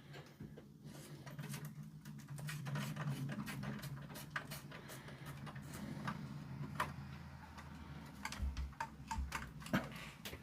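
Scattered small clicks and light knocks of speaker wires and connectors being handled and plugged into an amplifier, over a low steady hum, with a couple of dull low thuds near the end.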